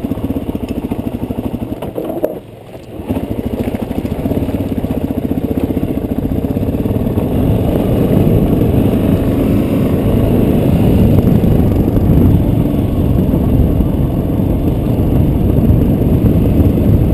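Suzuki DRZ400S single-cylinder four-stroke engine running under way on a dirt trail. Its note drops off briefly about two seconds in, then picks up and pulls harder and louder from about eight seconds in.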